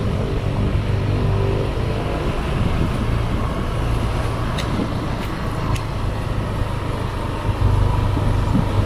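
Engine of a slowly moving vehicle running steadily, with road and wind noise. Three light clicks come about halfway through.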